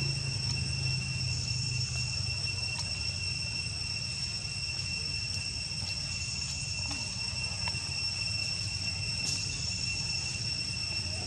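Steady high-pitched insect drone holding two even tones, over a low steady rumble.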